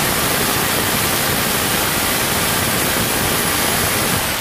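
Parkside PBH 1500 F6 SDS-Plus hammer drill hammer-drilling into a concrete wall at full speed, running loud and steady.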